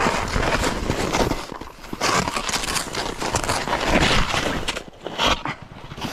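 Short gliding snowshoes (Anar forest skis) sliding and scraping through soft, deep snow, with crunching and crackling as they push through twigs and shrubs. The noise swells and drops unevenly with each move.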